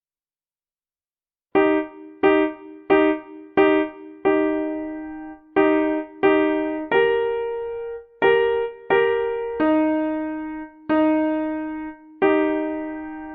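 Piano playing a simple two-part melody, struck notes with two pitches sounding together, coming in after about a second and a half of silence. Most notes are short and evenly paced, with a few held longer.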